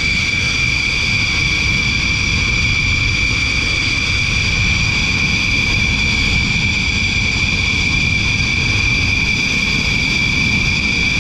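Fighter jet engines running steadily: a constant high-pitched whine over a low rumble, unchanging throughout.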